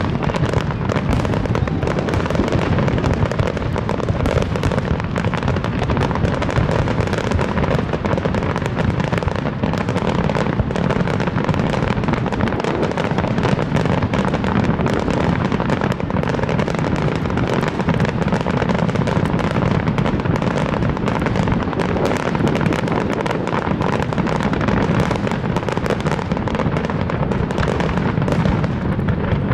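Aerial fireworks display in a dense, unbroken barrage: many shells bursting at once, with rapid overlapping bangs and pops and no pause.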